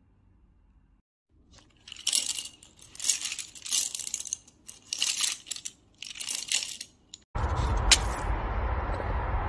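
A bundle of paintbrushes rattling and clattering against each other and a hard tile floor as they are handled, in short bursts about once a second. Then about two seconds of steady rushing noise with a single click, which stops abruptly.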